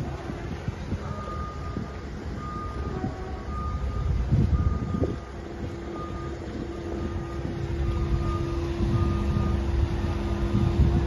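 Marine travel lift's warning beeper sounding about once a second, over a steady mechanical hum and wind rumbling on the microphone.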